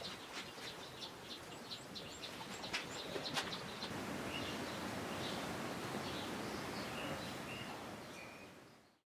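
Small birds chirping, many short high chirps over a steady background hiss, with two sharp clicks around three seconds in; the sound fades out near the end.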